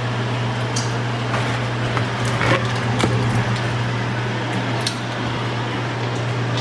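Kitchen cooking sounds: a steady hiss of turkey bacon frying in a pan, with a few sharp clicks of utensils and dishes about one, two and a half, three and five seconds in, over a steady low hum.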